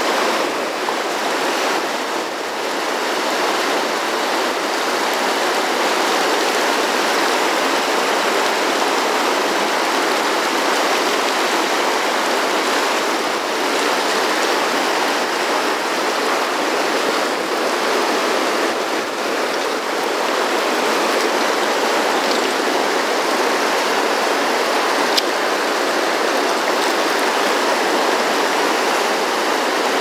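Whitewater river rapids rushing over boulders at close range, a loud, steady rush of water.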